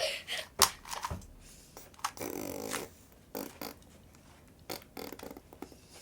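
Scattered soft clicks of a 2x2 Rubik's cube being turned by hand, with a brief hummed vocal sound a little over two seconds in.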